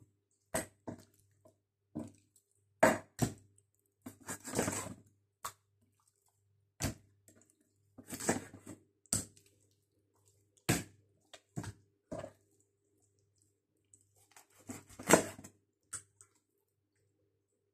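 Kitchen knife cutting up a raw whole chicken on a wooden chopping board: irregular knocks of the blade against the board and short bursts of cutting through meat, with the loudest strokes about three seconds in and again near the end.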